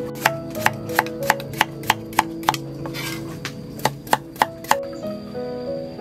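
Knife chopping food on a cutting board: a run of about eight even strokes, roughly three a second, then a pause and four more strokes. Background music plays under the chopping.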